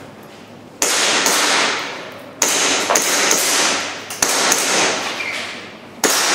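Airsoft pistol shots fired in a timed IPSC stage, about seven sharp cracks, several in quick pairs, each followed by a fading ring or echo lasting about a second.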